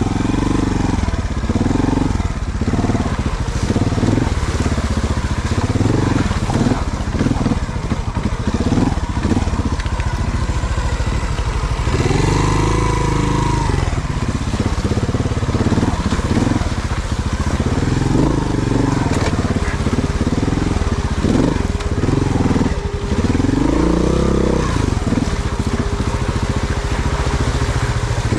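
Trials motorcycle engine revving up and down in repeated short blips as the bike climbs over rocks in a shallow stream, with tyres crunching on stones and water throughout.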